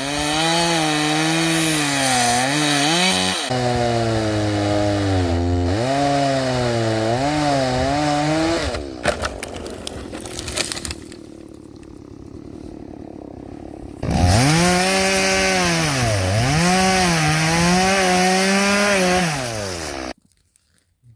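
Small petrol engine working under load through thick river ice, its pitch dipping and rising as the load comes and goes. It runs for about eight seconds, drops away to a lower, rougher noise for a few seconds, comes back for about six seconds and cuts off abruptly just before the end.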